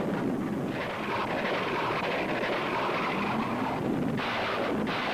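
Jet aircraft engine noise: a steady rush with a low hum that wavers in pitch.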